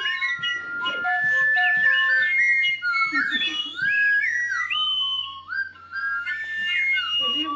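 Wooden flutes and whistles playing together, several high wavering notes that slide up and down in pitch and overlap. The sound dips briefly a little after halfway.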